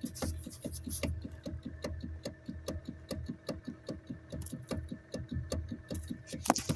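Rapid, evenly spaced knocking from the steering of a 2013 Hyundai Elantra, about four knocks a second over a low rumble, with one louder click near the end. The knock is felt through the steering wheel and is a fault whose cause the owner does not know.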